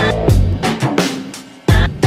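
Instrumental band music: drum-kit beats over bass and sustained chords. The sound thins and dies away about a second and a half in, then the band comes back in with a hit just before the end.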